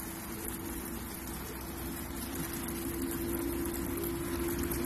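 Water running at an outdoor tap post, an even hiss, over a steady low machine hum.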